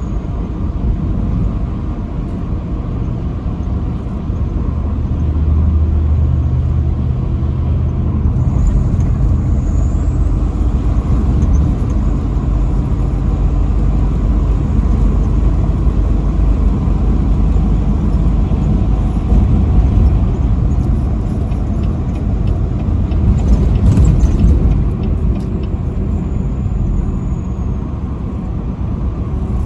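Truck driving at highway speed: a steady low engine and road rumble, with a brief louder rush about three-quarters of the way through.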